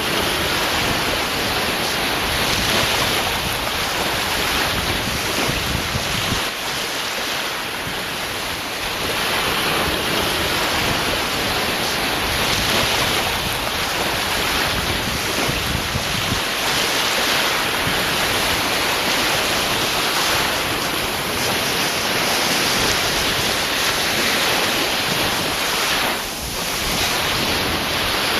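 Sea surf: waves breaking and washing in continuously, swelling and easing with a lull around a quarter of the way in and a brief dip near the end.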